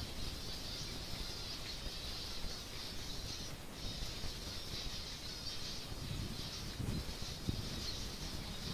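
A flock of finches twittering continuously as they gather to drink at a water trough, a dense high-pitched chatter with a brief lull about three and a half seconds in.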